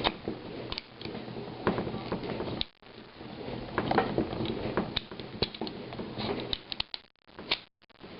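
Ruger P95 pistol's slide and frame being handled and lined up during reassembly: irregular small metal clicks and light scraping.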